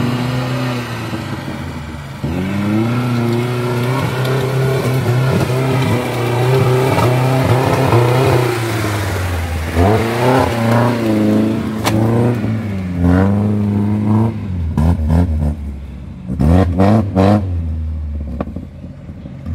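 Lada Niva 4x4 engine working under load through deep mud. The revs change slowly at first, then rise and fall in repeated short bursts through the second half, and the sound fades near the end as the car pulls away.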